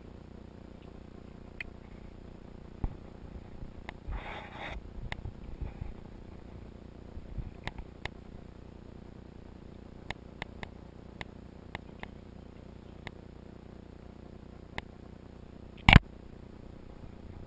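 A single sharp gunshot about sixteen seconds in, the loudest sound, preceded by scattered small clicks and a brief rustle of handling noise about four seconds in.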